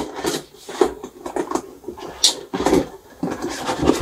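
Flat-pack shoe-box parts being unpacked and handled during assembly: irregular knocks, clicks and rubbing of the parts, with a brief high scrape a little past two seconds in and heavier knocks near the end.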